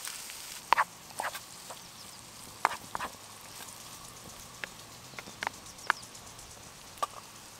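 Bacon, mushrooms and butter frying in a small pan: a faint steady sizzle with scattered sharp pops and clicks as the food is stirred with a wooden spatula.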